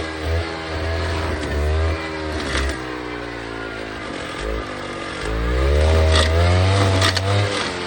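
Alpine Magnum stump grinder running with its Greenteeth cutter wheel. The engine pitch repeatedly sags and climbs again as the cutter takes load and frees up, and it is loudest after about five seconds. A few sharp knocks sound over the engine.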